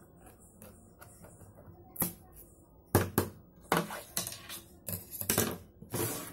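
Scissors snip through the seal sticker on a phone's cardboard box, a single sharp click about two seconds in. From about three seconds on comes a string of sharp clicks and knocks as the scissors and box are handled and set down.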